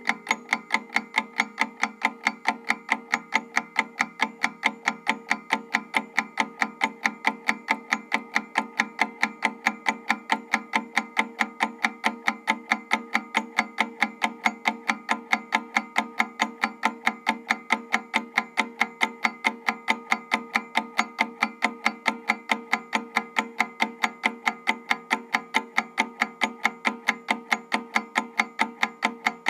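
Analog mechanical timer ticking as it counts down: a fast, perfectly even run of sharp ticks at a steady level.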